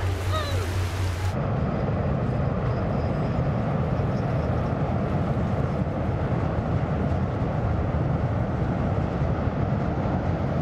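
Large Finnlines ferry passing close, its engines giving a steady low rumble. This follows a brief stretch of shore sound with a low hum and a few short bird calls, which cuts off about a second and a half in.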